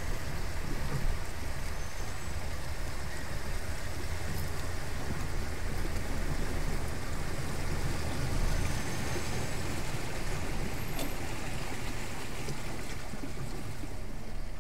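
Floodwater rushing and splashing around a Peugeot 106 as it wades slowly through deep water, heard from inside the car, with a low steady engine rumble underneath.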